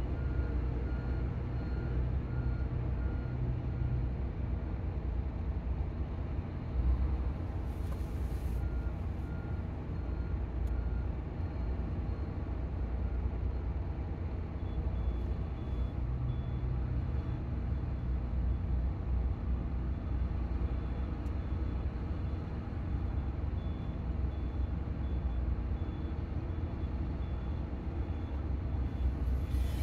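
Diesel engines of cargo-handling vehicles running steadily, with a reversing alarm beeping on and off as a vehicle backs up. A single knock comes about seven seconds in.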